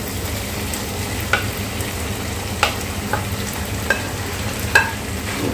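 Chicken sausage slices and chopped vegetables sizzling in a non-stick frying pan as the sausage is tipped in from a plate and stirred, with a few sharp knocks against the pan.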